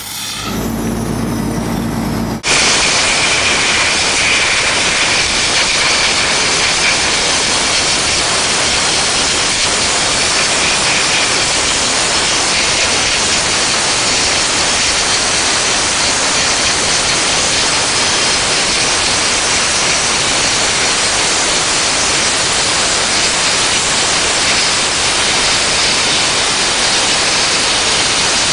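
Cryojet dry-ice (CO2) blasting nozzle jetting onto an electrical panel's busbar and wiring: a loud, steady hiss of the blast stream. It begins with an abrupt cut about two seconds in, after a quieter stretch with a low hum under the hiss.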